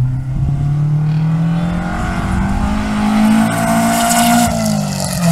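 Historic rally car's engine accelerating hard past the spectators, its note climbing steadily for about four seconds, then falling and holding lower near the end.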